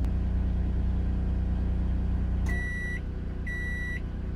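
Cummins Onan 2.8 kW propane RV generator humming steadily under the load of a running microwave, heard from inside the van. About two and a half seconds in, the microwave stops with a click, the generator's hum drops as the load comes off and it settles back to idle, and the microwave beeps twice, about a second apart.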